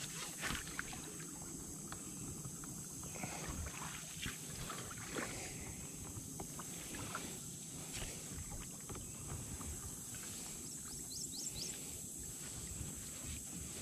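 Jackson Big Rig fishing kayak being paddled across a pond: soft paddle strokes and drips, with light knocks against the plastic hull. A steady high-pitched hiss runs behind it, and a few short rising chirps sound near the end.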